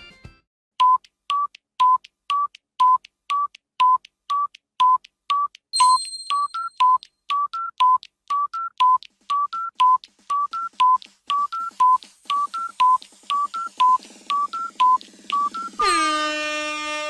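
Electronic countdown timer beeping about twice a second, switching to alternating lower and higher beeps about six seconds in. Near the end the timer gives way to a loud horn-like buzzer blast that drops in pitch as it starts and then holds, the time's-up signal.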